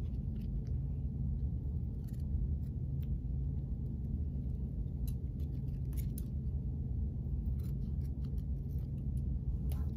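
Small scissors snipping through strips of tape stuck together, a scattering of short separate cuts, over a steady low hum in the room.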